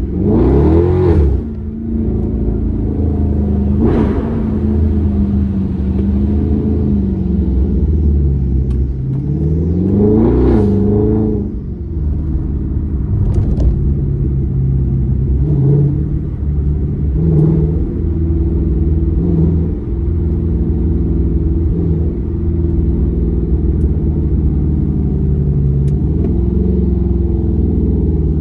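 Car engine and exhaust running under way with a steady low rumble, revved hard just after the start and again about ten seconds in, then given a string of short throttle blips about two seconds apart.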